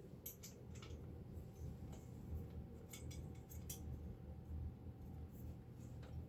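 Faint, scattered metallic clicks and clinks of a nut being fitted by hand onto the bolt that holds a handle to a metal saw stand, over a low steady hum.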